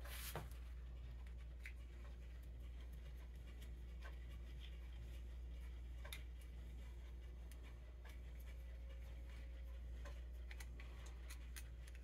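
Faint, scattered small clicks and scrapes of a screwdriver turning the idle mixture needle into the cast body of a Ford 8N carburetor, over a steady low hum.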